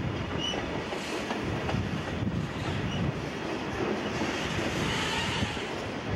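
Freight train cars rolling past on the rails, a steady rumble and clatter of wheels.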